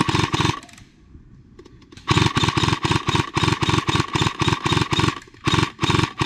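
Airsoft electric gun firing on full auto at about ten shots a second, its gearbox whining under the shots. A burst ends in the first half-second, a long burst of about three seconds follows, then two short bursts near the end.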